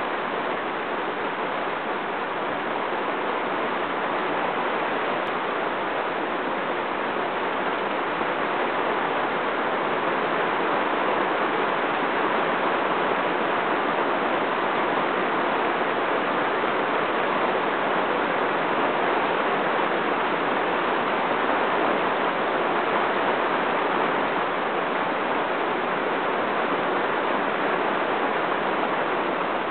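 Heavy rain falling on shallow water and mud, a steady hiss that stays even throughout.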